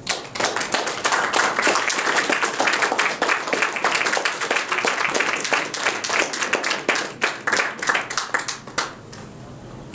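Audience applauding, starting right as the reading ends and thinning out near the end.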